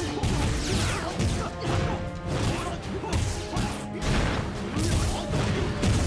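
Fight-scene sound effects: repeated hits and impacts with swooshing whooshes, over dramatic background music.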